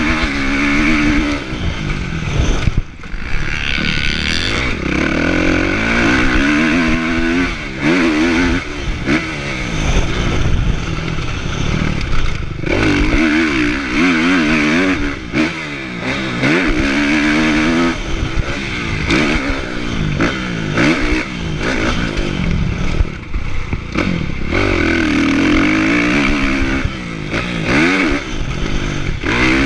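Kawasaki motocross bike's engine, heard from the rider's chest, revving up and falling off again and again as the throttle is opened and closed, with a few brief dips where the throttle is shut.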